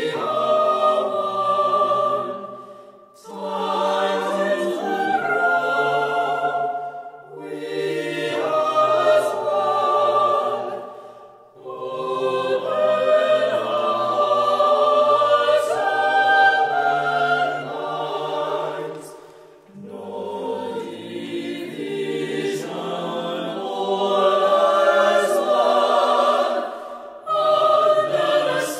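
Mixed-voice chamber choir singing a cappella, phrase by phrase, with short breaks between phrases.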